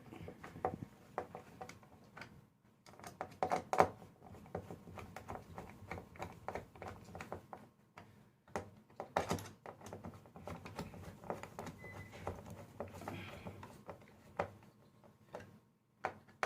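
Irregular light clicks and knocks of plastic keyboard parts and screws being handled while the key sections of a Nektar Impact LX49 MIDI keyboard are fitted back in, with a couple of louder knocks.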